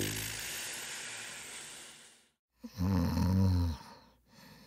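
Snoring sound effect: a breathy exhale fading away over the first two seconds, then one low snore lasting about a second, starting near three seconds in.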